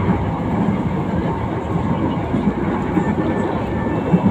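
Running noise of an LRT Line 1 light-rail train heard from inside the car as it travels along the elevated track: a steady low rumble of wheels on rail, with a few sharper knocks, one near the end.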